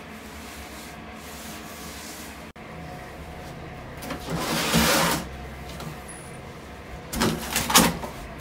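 A wire dog crate scraping as it is pushed across a tiled floor, about four seconds in, then a quick cluster of knocks and rattles near the end as a plastic jerrycan is set into a cardboard box. A low steady hum runs underneath.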